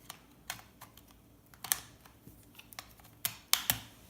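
Irregular small clicks and snaps of a hand tool working components off a circuit board, with the sharpest snaps near the middle and about three and a half seconds in.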